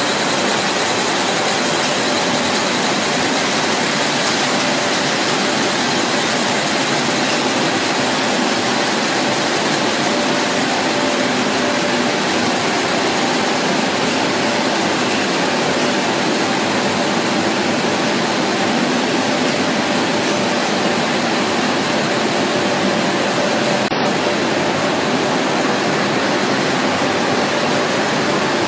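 Pasta production line machinery running: a steady mechanical drone with a few faint steady hums in it.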